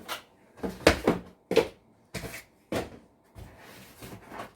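Knocks and clatter from a PC cabinet being picked up and set down, about seven separate hits in four seconds.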